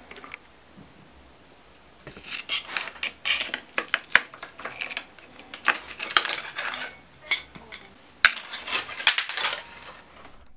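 Metal parts clinking and clattering in irregular spurts as the chainring and its lockring are worked off the drive side of a Bosch mid-drive motor; it starts about two seconds in.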